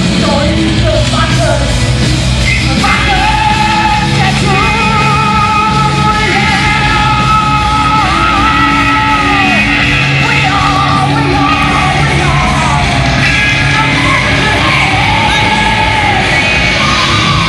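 Live heavy metal song, a woman's voice singing long held notes over a loud, steady band.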